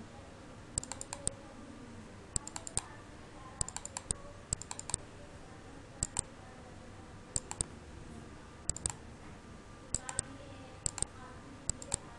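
Computer mouse and keyboard clicking: short clusters of sharp clicks, several of them quick pairs like double-clicks, while files are browsed in a dialog.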